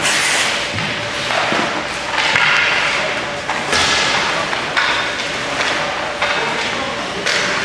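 Ice hockey skate blades scraping and carving the ice in repeated hissing strokes, roughly one a second, with a few sharp knocks of sticks and puck.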